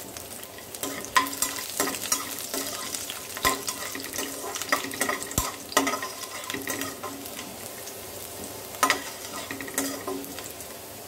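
Garlic cloves, fennel seeds and curry leaves sizzling gently in hot oil in a kadai, a spatula stirring them and knocking and scraping against the pan at irregular moments, with a short metallic ring after the sharper strikes. This is the tempering stage, the garlic being fried until golden.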